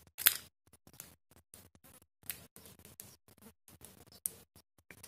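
Scattered small clicks and scrapes of a screwdriver working the terminal screw of a plastic one-way switch to fasten a wire, the sharpest click just after the start.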